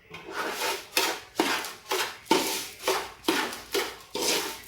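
A ladle stirring and scraping roasted rice flour mixed with jaggery syrup in a cooking pot, in quick rhythmic strokes of about two a second, each a sharp scrape that trails off.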